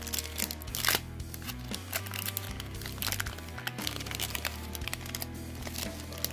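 Foil trading-card booster pack crinkling and tearing as it is pulled open by hand, a string of sharp crackles with the strongest about a second in. Background music with a steady low bass line runs underneath.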